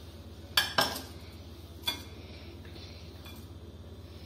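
Kitchenware clinking: two sharp clinks close together about half a second in, then a third near the two-second mark.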